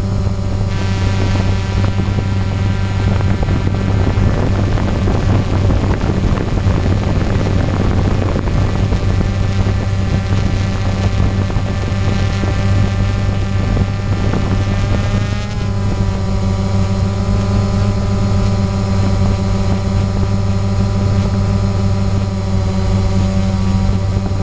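DJI Phantom quadcopter's motors and propellers whining steadily, heard from the camera mounted on the drone. About two-thirds of the way through, the pitch shifts as the motors change speed.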